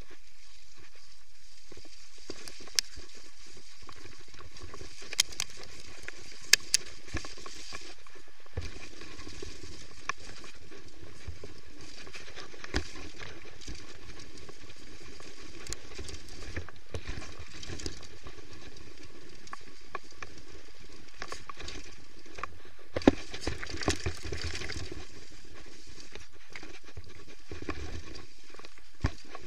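Downhill mountain bike ridden fast down a leaf-covered dirt trail: a steady rush of wind and tyre noise, broken by sharp knocks and rattles from the bike over bumps, the loudest about six seconds in and again a little past twenty seconds.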